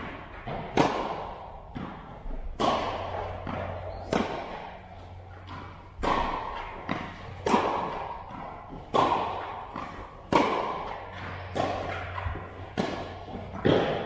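Tennis rally: racket strikes on the ball alternating with ball bounces on the court, a sharp hit every second or so. Each hit rings on in the echo of a large metal-clad hall.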